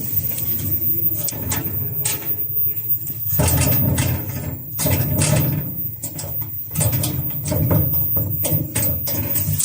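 Automatic N95 mask-making machine running: irregular sharp clicks and clacks over a continuous low rumble.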